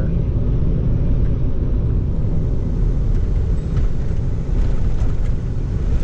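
Steady low rumble of a vehicle driving, heard from inside its cabin: engine and tyre road noise.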